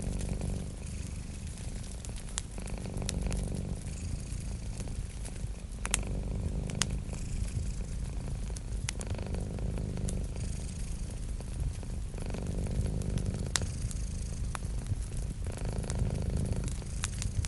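Cat purring steadily, swelling and easing with each breath about every three seconds, over a crackling wood fire with scattered sharp pops.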